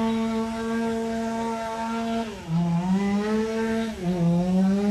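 Chainsaw running at high revs during tree cutting. Its engine note holds steady and dips in pitch twice, about halfway through and again near the end, before climbing back.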